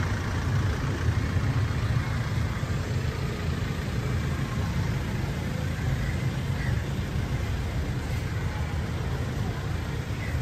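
Steady low rumble of a vehicle engine idling amid street traffic.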